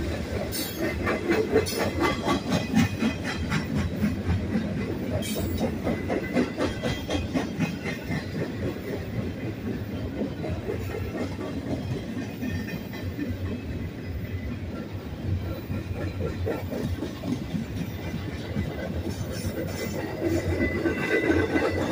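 Freight cars of a BNSF manifest train rolling past at close range: a steady rumble of wheels on rail with a rapid clickety-clack over the joints, growing a little louder near the end.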